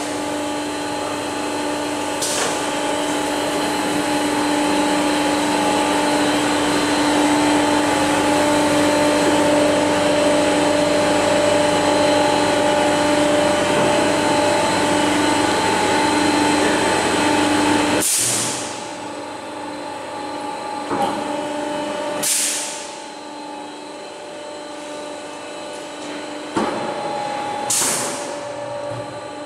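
Machinery of a PUR glue laminating line running: a steady loud motor whine of several tones over a hiss. It drops away suddenly about two-thirds of the way through, leaving a fainter hum broken by a few short hissing bursts.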